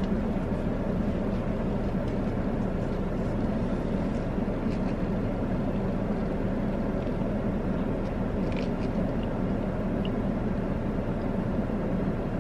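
Steady hum of a car idling while parked, heard from inside the cabin, with a few faint clicks.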